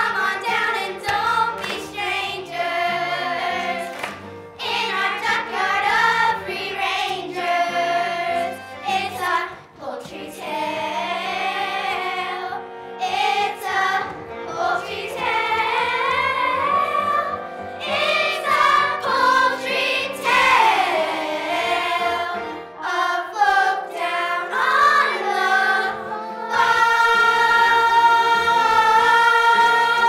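Children's chorus singing a musical-theatre song together, ending on a long held note.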